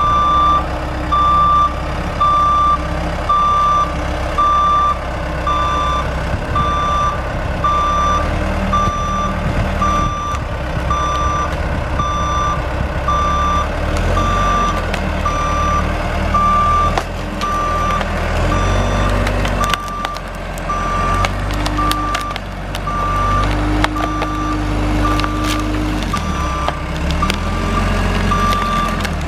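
Backup alarm of a reversing machine beeping steadily, a little more than once a second, over the machine's engine. The engine rises and falls in pitch under load in the second half.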